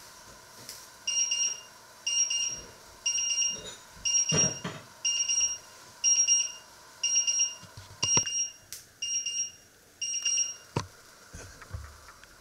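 Electronic kitchen timer alarm going off: a high-pitched group of quick pips repeated about once a second, ten times, signalling that the set cooking time has run out. It stops near the end, with a few light knocks in between.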